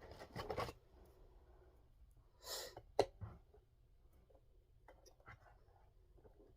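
Quiet handling of a robot vacuum's plastic parts: a brief rustle, then one sharp plastic click about three seconds in, with a few lighter clicks later, as the side brushes are clipped into place.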